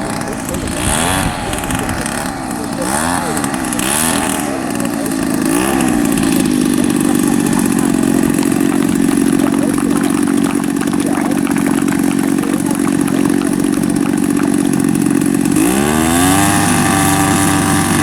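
Engine of an RC model aircraft, its pitch rising and falling several times in quick throttle changes, then holding steady for a long stretch before climbing sharply near the end.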